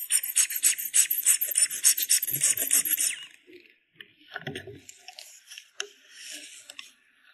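Metal spatula scraping and rasping across pressed eyeshadow powder in a palette pan: quick, loud strokes for about three seconds, then quieter scrapes with a dull knock partway through.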